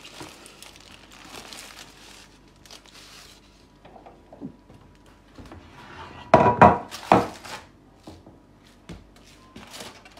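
Aluminium foil parcel crinkling and rustling as it is handled with a cloth towel and lifted out of a ceramic baking dish, with light knocks against the dish. A louder flurry of crinkling and knocks comes about six to seven seconds in.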